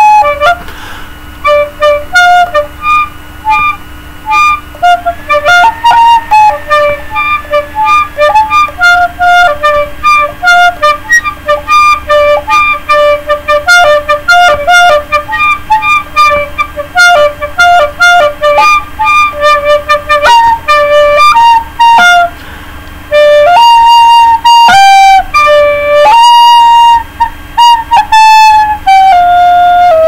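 Plastic recorder played solo: a brisk melody of short notes for most of the passage, then longer held, louder notes from about two-thirds through.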